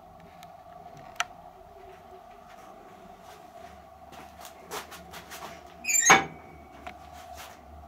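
Handling of a steel boiler's casing and door fittings: a few light clicks and knocks, then a loud metallic clank with a brief scraping squeak about six seconds in, over a steady hum.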